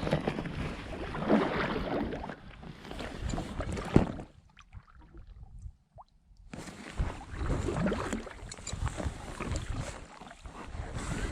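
Paddle strokes from a packraft: a rhythm of swishes and splashes in the water, with a sharp knock about four seconds in. The strokes pause for about two seconds, then resume.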